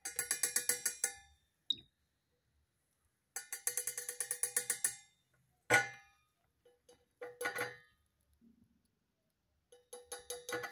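A cockatiel rapidly tapping its beak against the inside of a stainless steel cup, so that the metal rings. The taps come in quick runs of about ten a second, with pauses between them and one single harder knock about halfway through.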